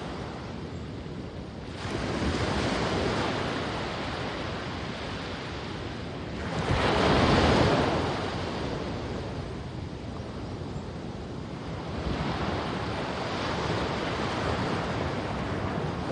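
Ocean surf rolling onto a sandy beach, rising and falling in swells as the waves break and wash in. The loudest wave breaks about seven seconds in, with smaller surges about two and twelve seconds in.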